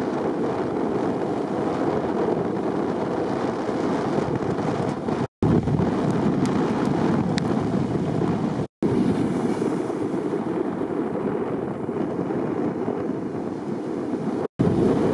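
Wind buffeting the microphone over the rush of breaking surf, a steady dense rumble that cuts out to silence briefly three times.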